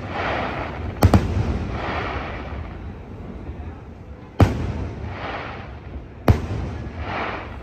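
Aerial fireworks bursting: three sharp booms, about a second in, just past four seconds and just past six seconds, each followed under a second later by a fading crackle.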